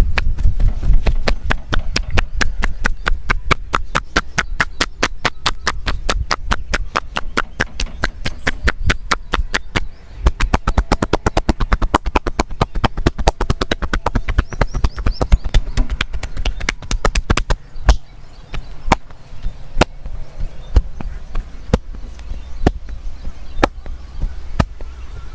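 Percussive massage: hands chopping and slapping on the body in a fast, even rhythm of about five strikes a second, then slowing to scattered single strikes about once a second after about 17 seconds.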